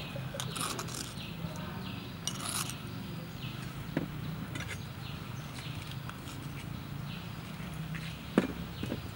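A metal spoon clinks lightly a few times as salt is spooned from a small dish onto mashed potato, over a steady low hum.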